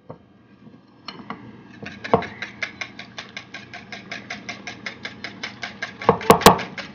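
Wire whisk beating thin batter in a ceramic bowl, the wires clicking against the bowl in a fast, even rhythm of about six strokes a second that starts about two seconds in. A few louder knocks stand out near the end.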